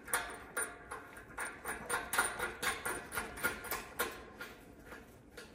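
Quick, irregular metallic clicking and clinking, about three or four a second, from a hand tool working the steel bolts that fasten a pony vise to a steel table. It stops shortly before the end.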